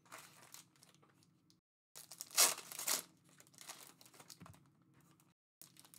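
Foil trading-card pack wrappers of Panini Mosaic NBA hobby packs crinkling and tearing as they are pulled open by hand, in uneven rustles with the loudest about two to three seconds in.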